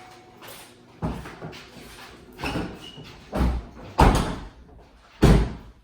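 Car doors being opened and slammed shut: a series of heavy thuds, the two loudest about four and five seconds in.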